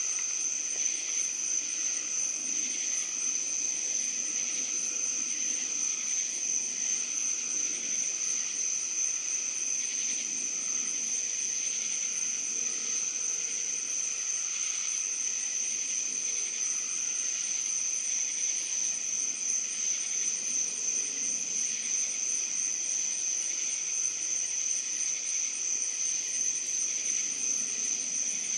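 Crickets and other night insects singing in a steady chorus: one high, continuous trill over a fainter lower one.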